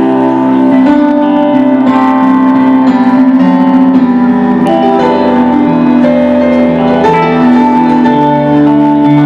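Live band playing an instrumental passage: electric guitar and keyboard holding sustained chords that change every second or two.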